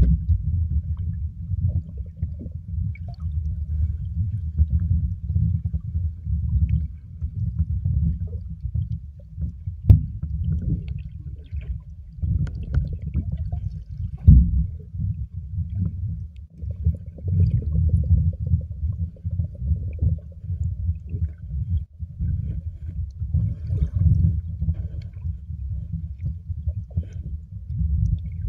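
Muffled, low rumble of water moving against an underwater camera, heard from below the surface, with a couple of sharp knocks, about ten seconds in and again about four seconds later.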